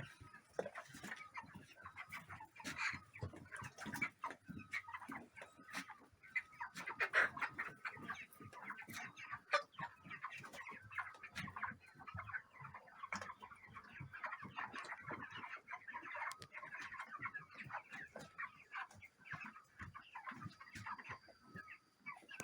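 A flock of chickens clucking, many short calls overlapping, with occasional sharp clicks among them.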